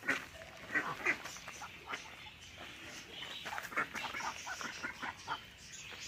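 Flock of white domestic ducks quacking in short, scattered calls.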